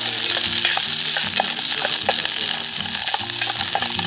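Food sizzling as it fries in a pan, with a steady hiss and small scraping ticks as it is stirred. Background music with held notes plays underneath.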